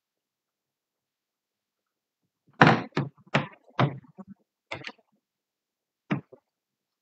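A series of irregular thumps and knocks, about six in three and a half seconds, the first the loudest, breaking a dead silence.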